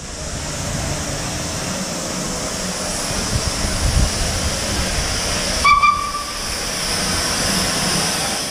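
Steady hiss of steam escaping from a standing narrow-gauge steam locomotive, with a short, high steam-whistle toot about two-thirds of the way through.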